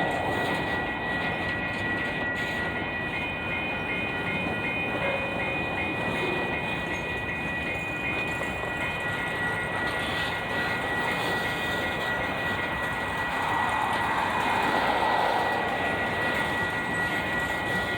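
Cars of a long Union Pacific mixed freight train rolling past on the rails: a steady rumble and rush with a thin, steady high tone over it.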